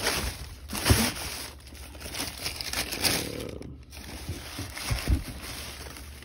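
Tissue paper rustling and crinkling in irregular bursts as hands dig through a shoe box, with a few soft bumps from handling the box and shoe.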